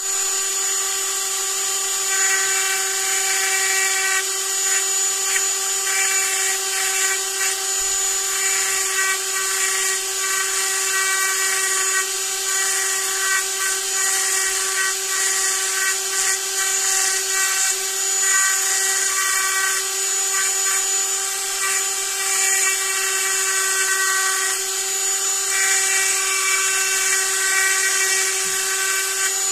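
Handheld pen-style rotary tool running steadily at a high, constant pitch as its fine bit engraves letters into a thin wooden bookmark, with a hiss from the bit cutting the wood.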